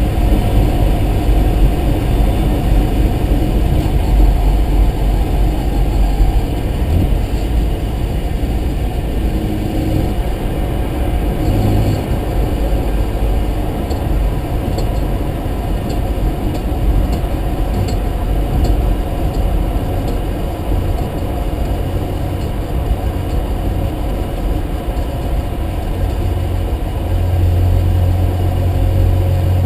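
Mazda RX-7's rotary engine running steadily, with a stronger low hum near the end.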